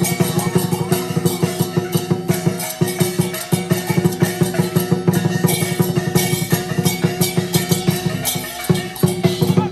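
Fast, dense drumming with crashing cymbal-like hits, many strikes a second, under a steady held tone, with a brief dip in the beat about three seconds in and again near eight and a half seconds.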